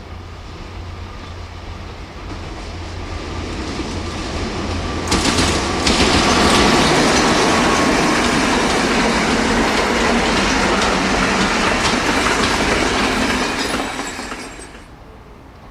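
Freight train passing close by. The noise builds as it approaches, turns into a loud, dense rumble and clatter of wheels on the rails about five seconds in, then drops away sharply near the end as the train clears.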